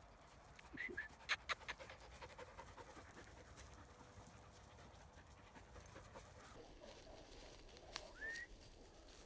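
Faint dog panting, with a few sharp clicks about a second in and a short rising squeak near the end.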